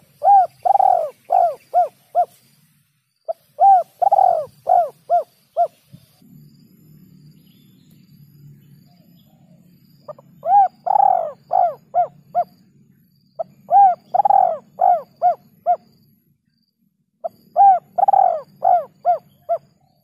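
Spotted dove cooing: five phrases, each a short run of rounded, throaty coo notes, with pauses of one to several seconds between phrases.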